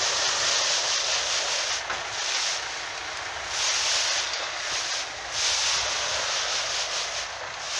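Wind buffeting the microphone in gusts, a rushing hiss that swells and drops every second or two, over the faint low rumble of the truck.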